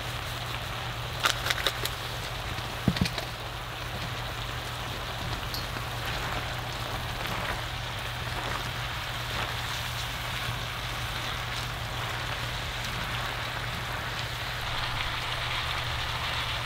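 Chicken, bell peppers and onions sizzling steadily in a cast iron skillet on a wood stove, with a few sharp clicks about one and three seconds in.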